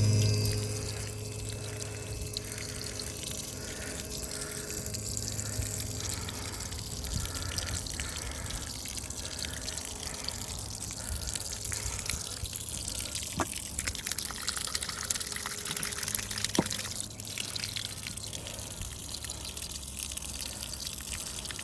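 Rule 360 GPH bilge pump running with a steady low hum while its outlet spits a stream of water that splashes and trickles.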